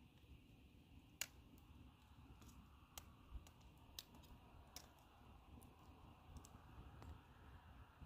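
Near silence broken by a handful of faint, sharp clicks, scattered irregularly; the loudest comes about a second in.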